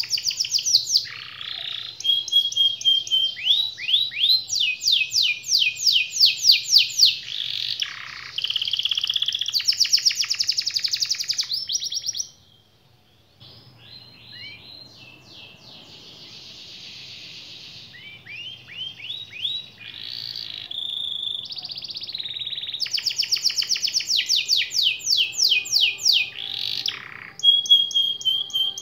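Domestic canary singing a long song of rapid trills and fast-repeated sweeping notes. After a brief gap about twelve seconds in it resumes more softly, then builds back to loud rolling trills near the end.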